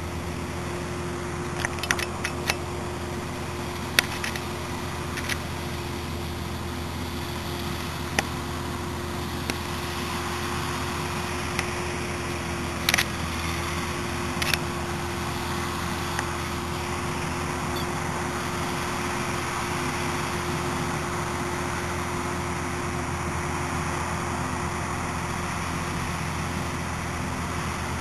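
Steady low hum under a light hiss, broken by scattered sharp clicks, most of them in the first half, from the handheld video camera being handled as it tracks the sky.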